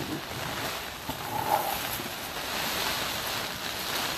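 Rain pattering steadily on the greenhouse cover, with wet soil being tipped from a plastic bin into a plastic barrel. The hiss grows louder over the second half, and there is a brief bump about a second and a half in.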